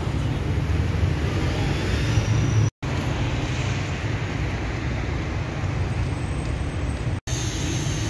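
Steady city street background with low traffic rumble, with two split-second dropouts, about three seconds in and near the end.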